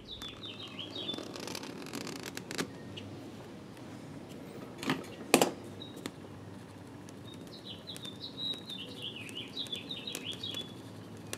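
A small bird chirping in quick twittering runs, once at the start and again for about three seconds near the end, with two sharp knocks about five seconds in.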